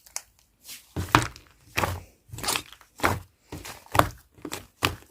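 Yellow slime being pressed and squished by hand in a steady rhythm, about one squelching press every half to two-thirds of a second.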